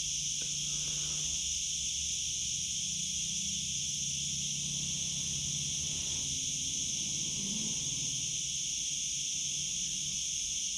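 Steady high-pitched chirring of an insect chorus, unbroken, over a low steady hum.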